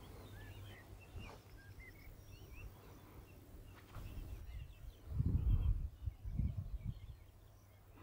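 Small birds chirping and twittering in short calls through the first half, over a faint low hum. About five seconds in come two bursts of low rumble, the loudest sound here.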